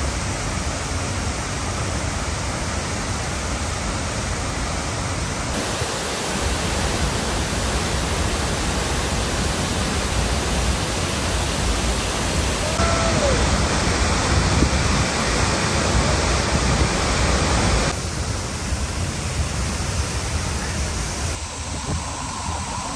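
Steady rushing of a large waterfall, Chatterbox Falls in full flow, its tone shifting abruptly a few times. A short falling whistle comes about halfway through.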